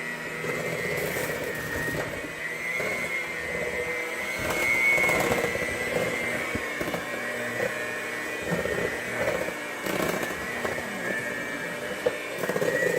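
Electric mixer running steadily with a high whine, its beaters working thick cookie dough as flour is mixed in, with irregular knocks and clatter over it.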